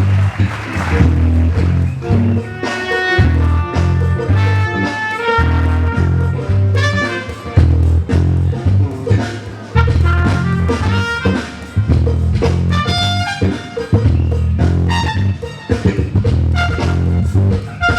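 Live band playing an instrumental soul-funk groove, with a loud, moving bass line under a pitched lead melody.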